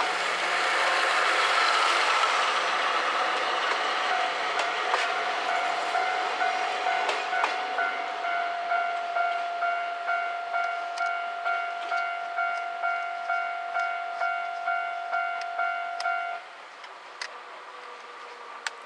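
Level-crossing warning bell ringing in a steady repeated pattern, just under two strokes a second, while a passing train rumbles by with a few sharp wheel clicks. The train noise is loudest at the start and fades. The bell stops abruptly about sixteen seconds in, once the train has cleared the crossing.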